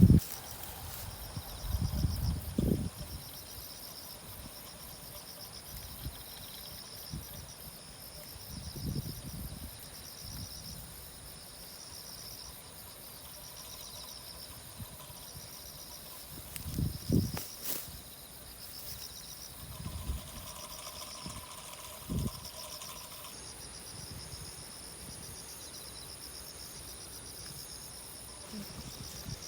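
Insects chirring outdoors: one steady high drone, with another insect's call pulsing in an even repeating rhythm below it. Occasional low thumps and rustles of handling or footsteps come and go.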